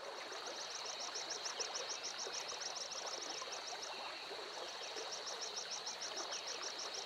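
River water running, a steady rushing flow, with a steady high-pitched whine and a fast high chirping of about eight pulses a second over it, the chirping pausing briefly about four seconds in.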